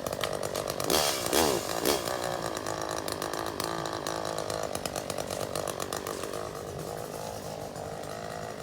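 Chainsaw revving up and down about a second in, then running steadily as it cuts a tree branch.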